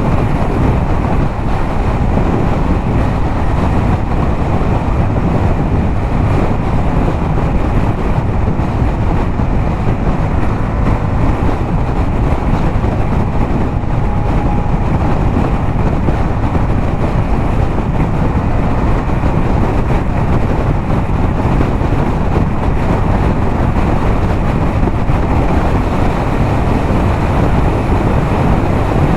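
Yamaha MT-07's parallel-twin engine running steadily at highway cruising speed through a LeoVince aftermarket exhaust, mixed with wind rush on the microphone.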